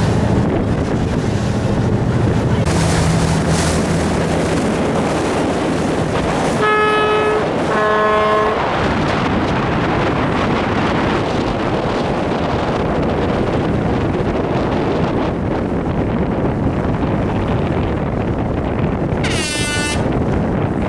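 Wind buffeting the microphone over a boat's engine running steadily on open water. Two short horn blasts sound about 7 and 8 seconds in, the second on a different pitch, and a brief rising tone comes near the end.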